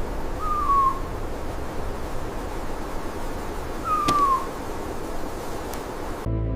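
Steady ambient hiss with two short, falling animal calls, one just after the start and one about four seconds in. Music comes in at the very end.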